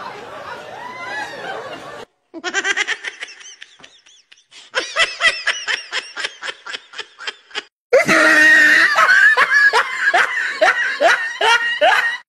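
Laughter: after about two seconds of background noise, several runs of rapid ha-ha laughing that start and stop abruptly, the loudest and densest in the last four seconds.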